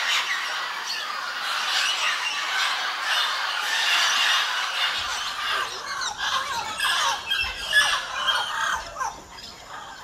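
A flock of parrots squawking and chattering together in a dense, continuous din. About halfway through, the chorus thins into more separate, distinct calls.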